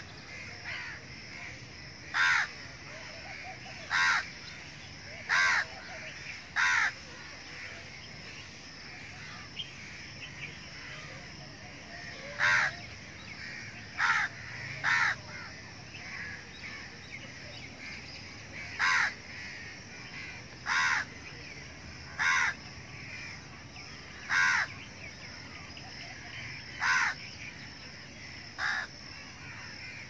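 A crow cawing repeatedly: single short, harsh caws every second or two, with a pause of several seconds partway through.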